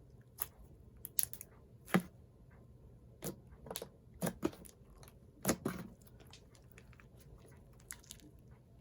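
Thick slime being squeezed and stretched by hand, giving off irregular crunchy clicks and pops, a few louder ones about two and five and a half seconds in.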